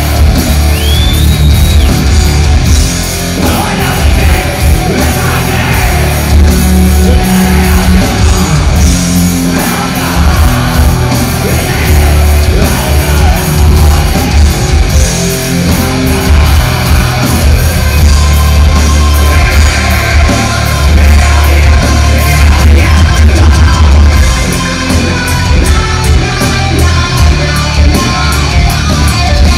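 Heavy metal band playing live in a hall, loud: distorted electric guitars, bass and drums, with a singer's vocals.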